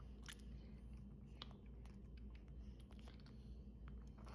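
Faint, scattered wet clicks and smacks of a baby's mouth gumming and sucking on a baby food feeder, over near-silent room tone.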